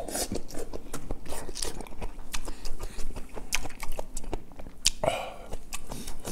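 Close-miked chewing of a mouthful of braised kimchi and pork, with many quick wet mouth clicks and smacks.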